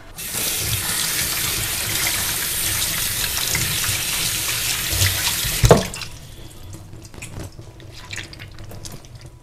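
Kitchen tap running into a stainless steel sink, water splashing over raw turkey legs as they are rinsed by hand. About six seconds in the flow stops with a knock, leaving quieter wet handling sounds and drips.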